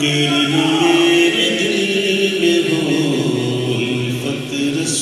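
A man's voice singing the slow, wordless opening of an unaccompanied Urdu naat, holding long notes that slide gently up and down.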